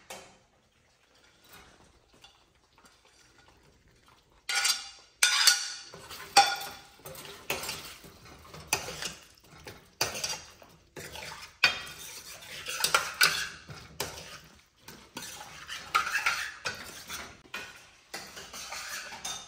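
Metal spoon stirring fried paneer and vegetables into thick gravy in a stainless steel kadai, scraping and clinking irregularly against the pan. The clinking starts about four seconds in, after a near-quiet stretch.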